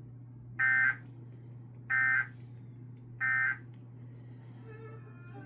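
Emergency Alert System end-of-message code: three short bursts of SAME digital data tones, about 1.3 s apart, over a steady low hum. The three bursts mark the end of the alert.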